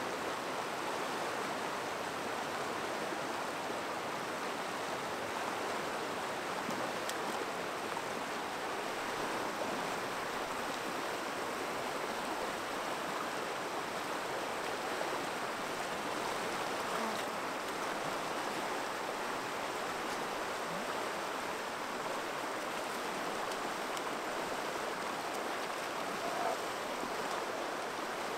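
Shallow, rocky river rushing steadily over stones and small rapids.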